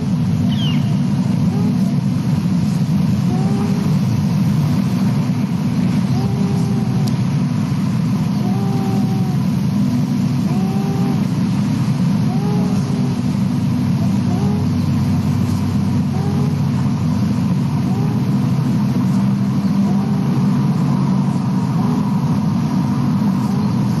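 Bald eaglet wheezing: a series of short, rising-and-falling wheezy notes, about one every second and a half, over a steady low rumble.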